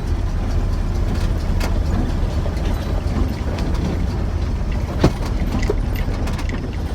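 Ford Ranger pickup driving, heard from inside the cab: a steady low engine and road rumble with scattered small rattles and one sharp knock about five seconds in.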